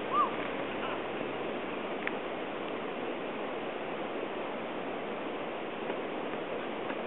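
Steady rushing of river water. Right at the start there is one brief high-pitched call that rises and falls.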